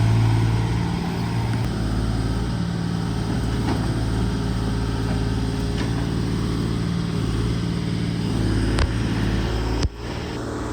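Excavator engine running steadily with a low, even hum, with a few faint clicks over it. The sound drops out briefly near the end.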